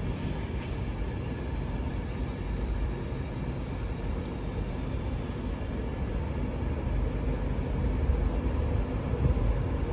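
LNER express passenger train running slowly along a platform: a steady low rumble of wheels and running gear that grows louder near the end.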